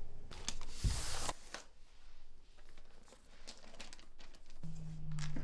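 Handling noises on a portable record player and record: a short loud rustle and scrape about a second in, then small clicks and knocks as it is worked. A low steady hum starts near the end.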